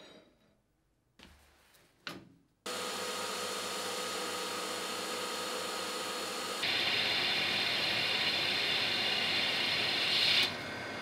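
Metal lathe running and a turning tool cutting a stainless steel bar. The steady machine sound with a whine starts abruptly about three seconds in, turns louder with a strong high hiss from the cut about seven seconds in, and drops off suddenly near the end.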